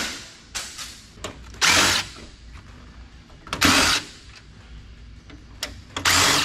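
Power drill-driver run in short bursts of about half a second, four times, roughly every two seconds, backing screws out of a computer case.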